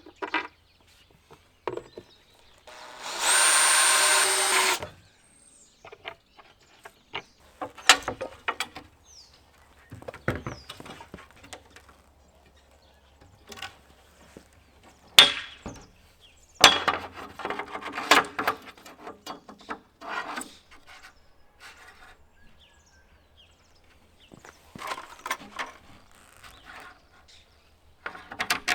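Cordless drill-driver running in one burst of about two seconds, driving a screw into a wooden backplate, among scattered knocks and clatter of tools and wood being handled.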